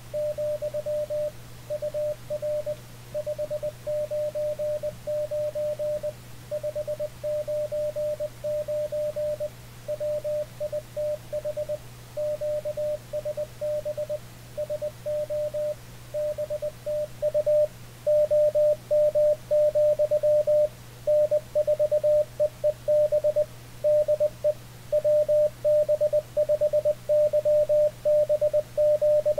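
Morse code (CW) tone from an Icom IC-7300, a single steady tone keyed in dots and dashes, with a low steady hum underneath. The keying gets louder a bit past halfway through.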